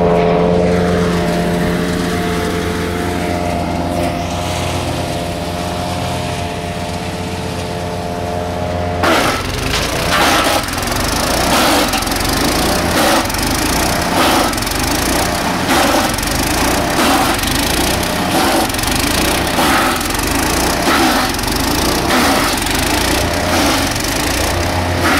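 Lumag Rambo HC15 petrol wood chipper with its 15 hp engine running steadily. About nine seconds in the sound turns abruptly rough and noisy, with sharp cracks about once a second, as conifer branches are fed in and chipped.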